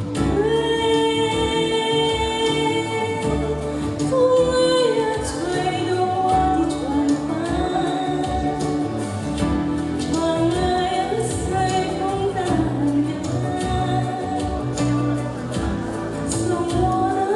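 A woman singing a slow song in long held notes that glide between pitches, over instrumental accompaniment.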